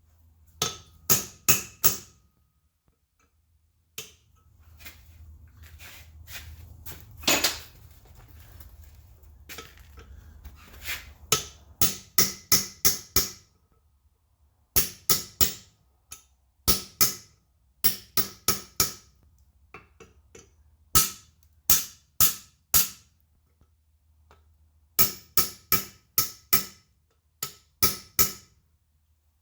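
Hand hammer striking wrought iron on an anvil in short bursts of three to six blows, each blow ringing. A low steady hum and some noise run under the blows in parts.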